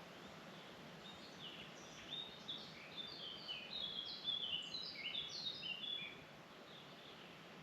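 Songbird singing one long phrase of quick, short chirped notes that starts about a second in and stops about six seconds in, over a faint steady background hiss.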